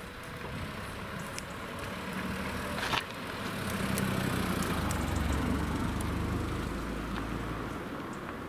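A small hatchback car, a red Ford Fiesta, drives past close by, its engine hum growing louder, peaking and fading away as it passes. A short sharp click is heard just before the car arrives.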